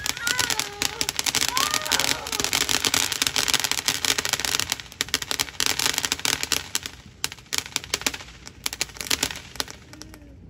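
Ground fountain firework spraying sparks with a dense, hissing crackle that thins to scattered pops after about seven seconds as it burns down.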